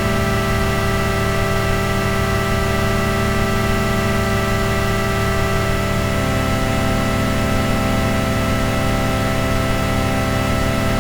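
Ambient drone music: many steady sustained tones layered over a wash of hiss, with no beat. The low tones shift slightly about six seconds in.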